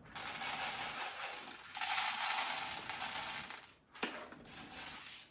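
Whole coffee beans pouring into a coffee maker's grinder hopper: a continuous rattling hiss of beans that stops after nearly four seconds, followed by a sharp click about four seconds in.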